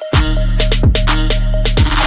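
Background electronic music with a heavy, regular beat and deep bass. It drops out for a moment right at the start, then comes back in.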